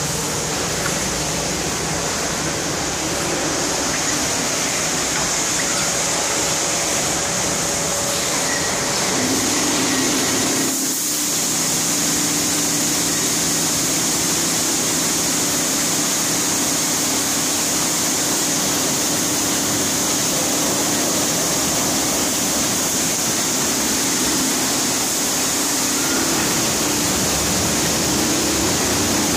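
Tammermatic RoboJet tunnel car wash running: a steady hiss of water jets spraying, over machinery noise from the wash equipment. A steady hum joins in about nine seconds in.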